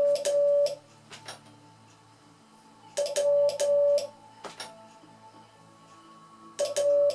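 Morse code sent by hand on a straight key: a steady high beep keyed as the letter W (dit-dah-dah), repeated three times about three seconds apart, each group about a second long. Each press and release of the key comes with a sharp click.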